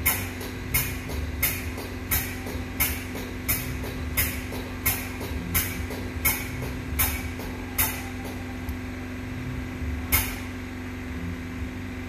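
Pneumatic oil pump feeding a metered oil dispensing gun, stroking with a sharp chuff about every 0.7 s while engine oil flows. It stops about eight seconds in, with a single stroke two seconds later. A steady hum underneath.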